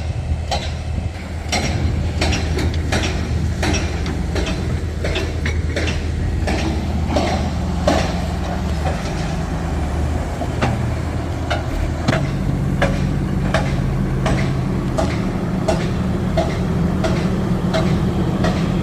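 Small hydraulic drilling rig running: a steady engine drone whose pitch shifts a couple of times, with repeated sharp metallic clanks that settle to about two or three a second.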